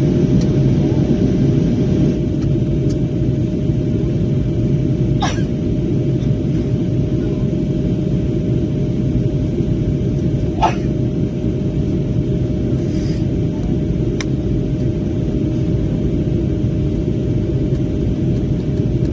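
Airliner cabin noise: a steady rumble of the jet engines and airflow with a constant hum. Two brief sharp sounds come about 5 and 11 seconds in.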